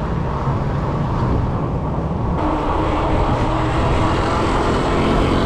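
Wind buffeting the microphone and tyre rumble from a fat-tyre e-bike riding along a concrete road. Past the halfway point the rushing noise grows a little and a steady hum joins in.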